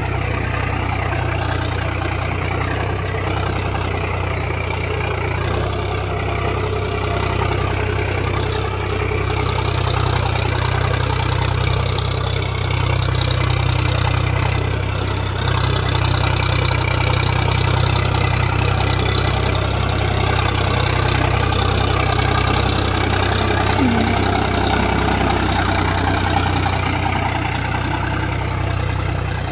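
Swaraj 735 FE tractor's three-cylinder diesel engine running steadily under load as it pulls a tine cultivator through the soil, a little louder from about ten seconds in.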